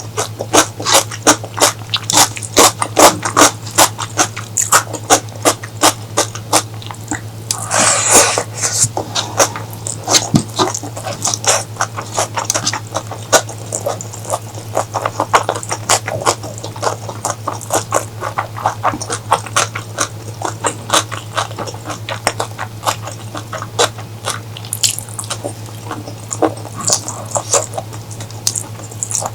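Close-miked chewing and lip-smacking of cuttlefish curry: a dense run of sharp, wet mouth clicks, with a longer slurp about eight seconds in. A steady low hum runs underneath.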